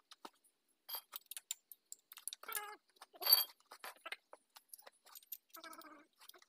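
A steel spanner clinking and ticking against the bolts of the exposed timing gears on a Perkins 4.236 diesel engine, with one sharp ringing clink about three seconds in.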